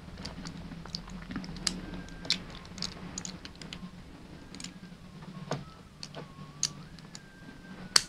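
Cast metal pieces of a Hanayama Cast Padlock puzzle clicking and clinking against each other as they are turned and slid by hand: irregular sharp clicks, some louder than others, with the loudest at the very end.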